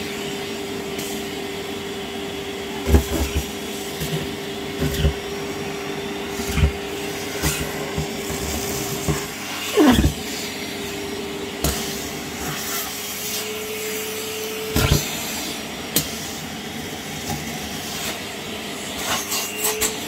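Kärcher WD 6P wet/dry vacuum running with a steady whine, sucking up plastic and tissues, with scattered knocks along the way. About ten seconds in, its pitch swoops sharply down, then the steady whine returns.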